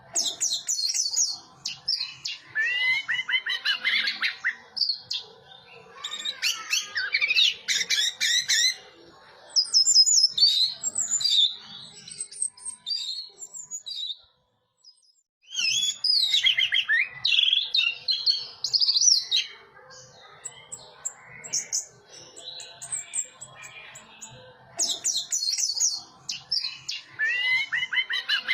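Orange-headed thrush singing a rapid, varied song of quick high twittering phrases, each lasting a few seconds with short pauses between, broken by a brief complete silence about halfway through.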